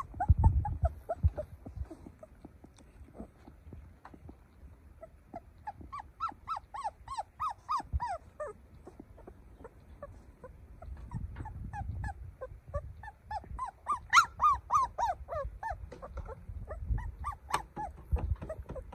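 Young puppy crying: many short, high whimpers that each fall in pitch, coming in runs. A few low thumps near the start.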